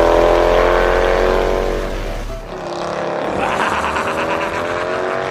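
Cartoon sound effect of a semi truck's engine pulling away, its pitch rising slowly, dipping about halfway and then climbing again.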